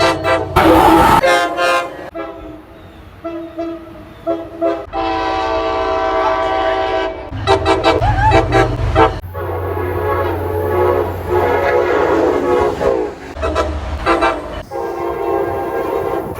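Train horns sounding one after another in a string of spliced clips, some short blasts and some held longer, each cut off abruptly where the next clip begins.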